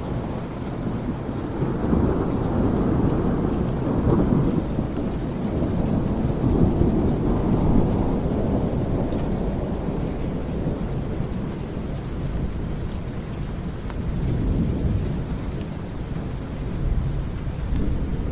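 Rainstorm ambience: steady rain with slow rolling rumbles of thunder, swelling strongest in the first half and easing after.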